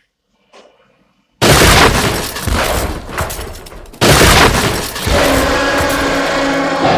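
Two sudden, loud crashing booms with a breaking, shattering character, the first about a second and a half in and the second about four seconds in, each dying away; from about five seconds on a steady, dense rumbling sound with a few held tones continues.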